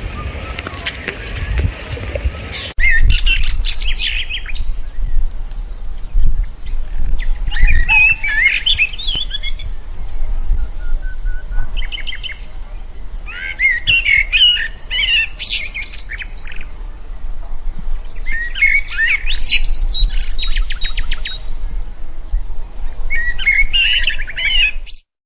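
Songbird singing: short bursts of high, fast chirping phrases every couple of seconds, over a low rumble. The sound changes abruptly about three seconds in and cuts to silence just before the end.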